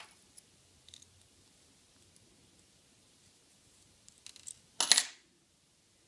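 A few faint clicks of a small screwdriver on an N scale locomotive's metal chassis, then about five seconds in a loud, short metallic clatter with a brief high ring as the small metal screwdriver is set down on a wooden table.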